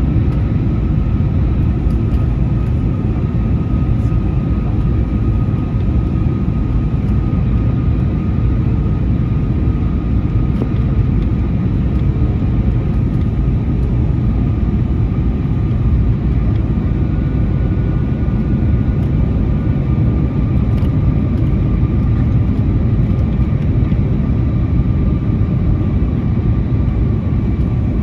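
Airbus A321neo cabin noise: a steady, loud rumble of the engines and airflow heard from inside the cabin, with a faint whine that slowly drops in pitch.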